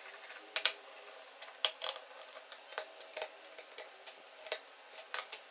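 A socket tool making irregular sharp metallic clicks and ticks as the bolts of a Bajaj Platina 100 crankcase are tightened in a criss-cross pattern.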